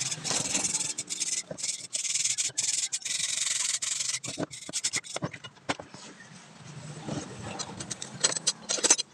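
A flat scraper blade scraped hard against the grime-caked metal housing of a Mitsubishi 4M51 truck starter motor, in quick rasping strokes, to clean off the heavy dirt. About four seconds in the steady scraping gives way to scattered knocks and clicks of metal parts being handled, with lighter scraping.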